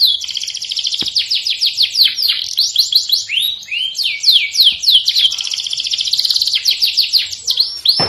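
Domestic canary singing, high-pitched: runs of repeated downward-sliding notes alternating with very fast rolling trills.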